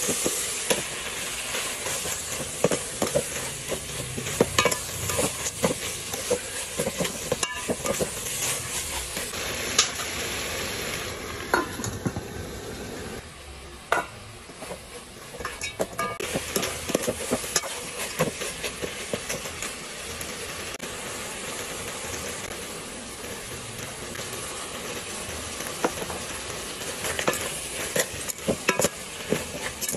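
Chopped duck meat with lemongrass and chilies sizzling in a steel pot, stirred with a metal ladle that clinks and scrapes against the pot in quick runs over a steady hiss.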